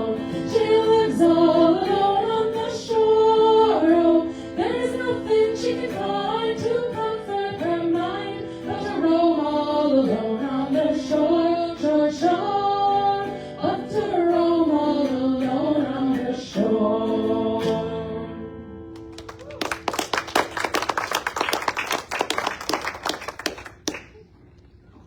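A vocal group, female voices prominent, singing a song in close harmony, ending on a held chord that fades out about 17 to 19 seconds in. Audience applause follows for about four seconds and dies away near the end.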